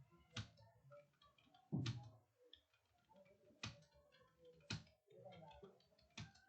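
Computer keyboard keys being typed on: faint, irregular clicks with a handful of louder taps, under faint background voices.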